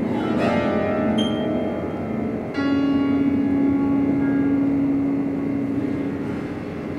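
Grand piano played inside its case, with hands on the strings: a falling sweep of ringing strings at the start and a sharp click about a second in. About two and a half seconds in, a low note is sounded and rings on for several seconds.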